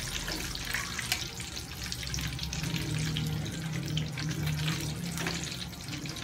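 Hot oil in a frying pan crackling and sizzling around pieces of fried tofu as they are lifted out with metal tongs, the burner just switched off.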